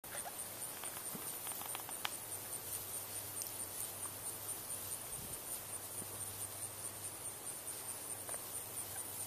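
Insects chirping in a high, steady, evenly pulsing trill, with a few faint clicks in the first couple of seconds.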